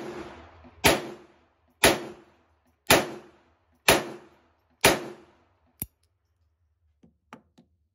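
Jennings J22 .22 LR pocket pistol firing five shots in a row about a second apart, each crack trailing off briefly. A sharp click follows about a second after the last shot, then a few faint clicks near the end.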